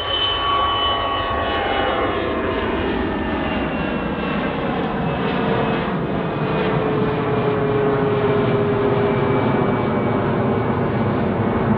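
Gulfstream IV business jet's Rolls-Royce Tay turbofans at takeoff power as it climbs out, a loud steady jet roar with whining tones that slowly fall in pitch as the aircraft passes.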